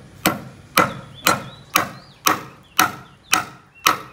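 Steady hammering, eight sharp blows about two a second, a hammer driving nails into timber.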